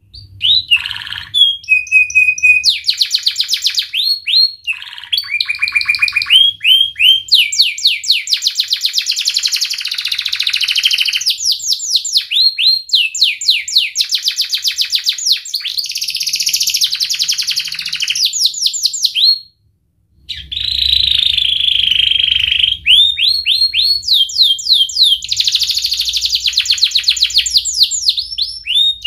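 Yellow domestic canary singing a long, loud song of rapid trills and rolls, each phrase repeating one note many times a second before switching to a new one every second or two, with a short break about twenty seconds in.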